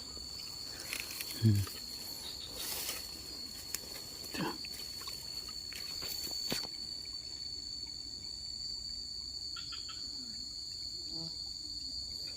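Steady, high-pitched insect trilling, typical of crickets in rice fields. A brief low sound, the loudest thing, comes about a second and a half in, and a few scattered clicks and knocks follow.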